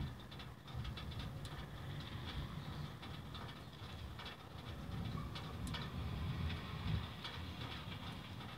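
A long, low rolling rumble of thunder that swells and peaks about five to seven seconds in, over a steady hiss with scattered ticks of rain.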